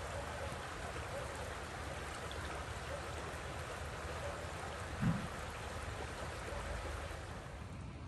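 Shallow river water babbling steadily over twigs and debris along the bank. A brief low thump about five seconds in.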